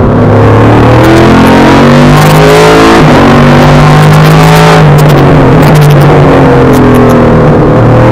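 The Nissan V8 of a Duqueine D08 LMP3 prototype running hard, heard from inside the cockpit. Its note steps in pitch about three seconds in, then dips and climbs again near the end, as it shifts gears and drives through corners. The recording is overdriven and distorted.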